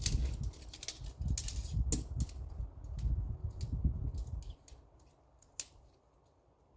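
Clicking, rustling handling noise with a low rumble underneath, which stops about two-thirds of the way through, leaving only a couple of faint clicks.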